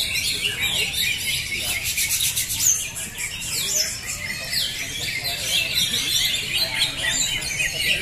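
Many caged green leafbirds (cucak hijau) singing at once, a dense chorus of overlapping chirps, whistles and trills, thickest about two seconds in.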